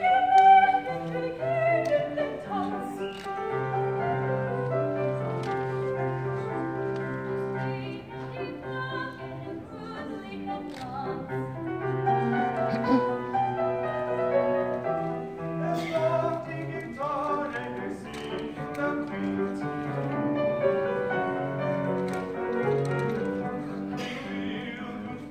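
Large mixed choir singing a classical piece in parts, holding sustained chords with a wavering high soprano line on top; loudest about half a second in.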